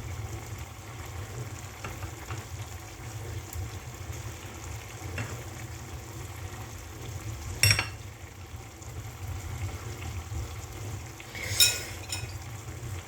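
Paella pan cooking on the stove with a faint sizzle over a steady low hum, and two sharp clinks of metal utensils against the pan, the second near the end ringing briefly.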